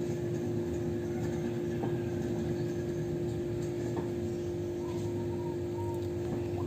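Steady background hum: one constant tone held over a low rumble, unchanging throughout.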